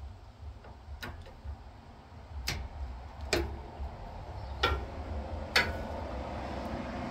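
Long-handled socket wrench on the Craftsman YT4000 lawn tractor's seized steering-plate bolt, now broken free and being turned out, giving five sharp metallic clicks spaced about a second apart.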